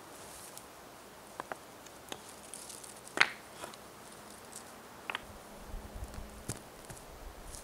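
Stones being set down and knocked against each other while a fire ring is built: a few separate clacks and knocks, the loudest about three seconds in. A low rumble comes in during the last couple of seconds.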